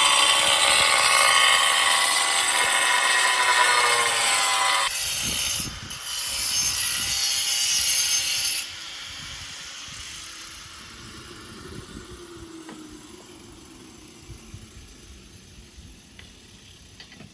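Power tool cutting ceramic tile, a loud grinding whine that changes character about five seconds in, dips briefly, resumes and then cuts off suddenly about nine seconds in. A few faint clicks follow.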